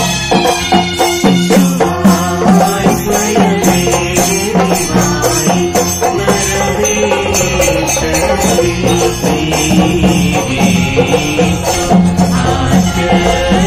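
Chenda melam: a group of Kerala chenda drums beaten rapidly with sticks, a dense, continuous stream of strokes.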